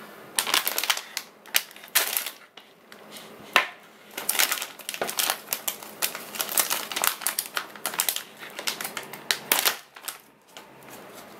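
Anti-static plastic bag crinkling and crackling as it is handled and pulled open around a circuit board: irregular rapid crackles with a couple of brief lulls.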